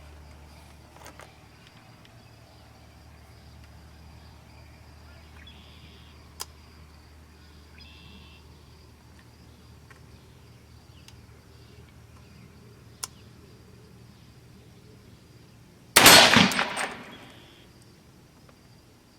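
A single .300 Blackout AR-15 rifle shot near the end, its report dying away over about a second and a half. A few faint clicks come before it.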